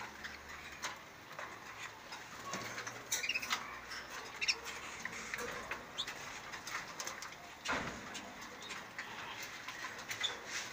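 Caged canaries calling now and then amid light clicks and rattles of cage wire being handled, with one louder knock about three quarters of the way through, as a tipped-over nest is set right.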